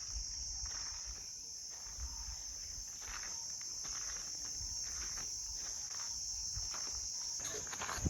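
Steady high-pitched drone of insects in the forest, with faint scuffing footsteps and a few sharper knocks near the end.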